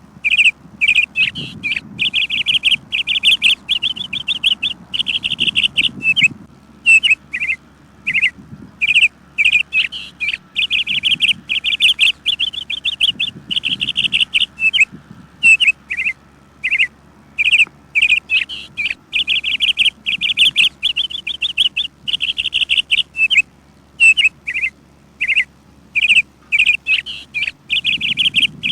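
Songbirds chirping in a tree: rapid high-pitched chirps and fast trills run almost without pause, with brief breaks now and then.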